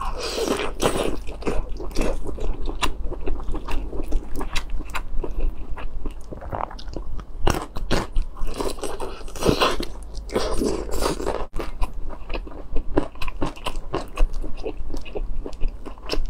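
Close-miked mouth sounds of a person biting and chewing braised intestines: dense, irregular wet crunching and smacking, busier about half a second in and again around ten seconds in.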